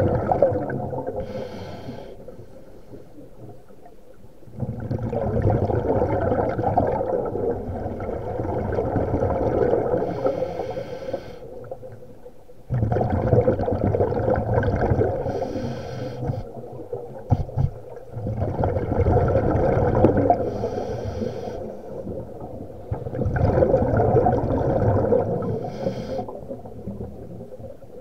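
Scuba diving regulator breathing underwater: long rumbling bursts of exhaled bubbles alternating with a short hiss on each inhale, in a slow cycle of roughly four or five breaths.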